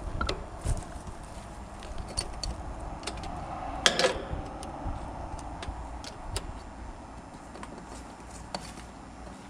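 Scattered clicks and light metallic rattles of hands and tools working at a heat pump's electrical panel, with a sharper clatter about four seconds in.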